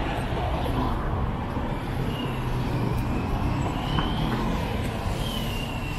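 Steady city traffic noise from vehicles on wet streets, an even rumble with no single pass standing out.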